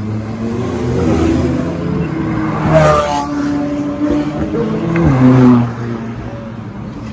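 McLaren sports car's twin-turbo V8 accelerating hard away, its pitch climbing as it revs, loudest about three and five seconds in; near five and a half seconds the pitch steps down as it shifts up and the sound fades.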